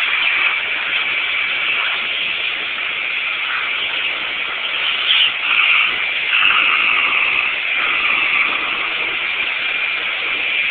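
Vacuum cleaner running through its hose: a steady high whine over rushing suction. About five seconds in, and again just after six, the note shifts and grows louder as the hose opening is partly blocked by a puppy's tongue caught in the suction.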